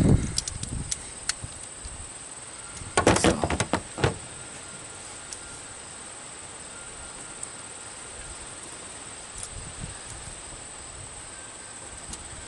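Hand tools and battery cable parts being handled: a short clatter about three seconds in, then a single sharp click about a second later. Between them and after them there is only a low background with a steady high-pitched whine.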